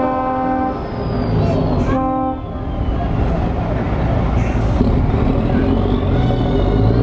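Truck air horn sounding, cutting off under a second in and giving one more short blast about two seconds in. Then the diesel engine of a MAN tractor unit runs as it drives slowly past, with a faint high whine.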